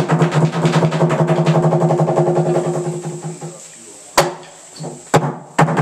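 Korean Buddhist wooden fish drum (mokeo), a large carved hanging fish beaten inside its hollow belly with a stick. A fast roll of wooden knocks with a low ringing tone fades away over the first three seconds or so, then single knocks sound about four and five seconds in.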